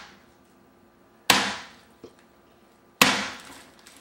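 Hammer whacking a whole coconut inside a plastic bag on a cutting board: two hard strikes about a second and a half apart, each ringing out briefly, with the tail of an earlier blow fading at the start. The shell holds and does not crack open.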